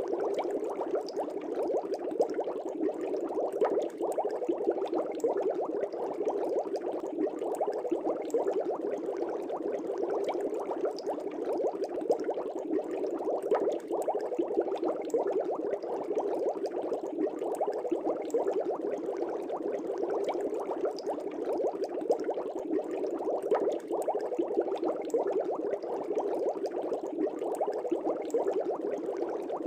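Air bubbles rising steadily through the water of an aquarium, a continuous dense bubbling with many small pops.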